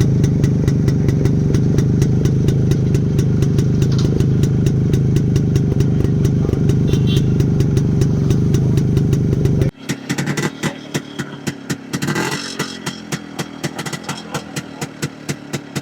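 Restored Yezdi's single-cylinder two-stroke engine running steadily with a rapid, even exhaust beat; the engine has been freshly rebored. Near the end the sound drops abruptly to a quieter, plainly separated popping beat.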